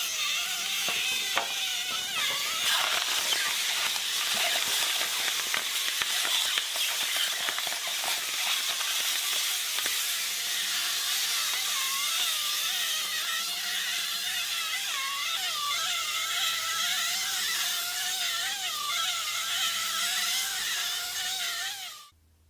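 A shredder running and grinding material through its blades: a steady hissing noise, with wavering squeaky squeals joining in the second half. It cuts off suddenly near the end.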